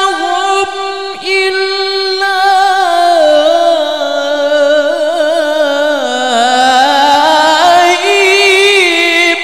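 A man's voice in melodic Quran recitation (tilawah) into a microphone, holding one long ornamented note that sinks in pitch through the middle and climbs back near the end.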